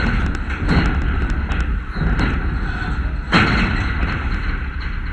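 Wind buffeting an action camera's microphone: a constant low rumble with rough gusts swelling several times, the strongest about three and a half seconds in.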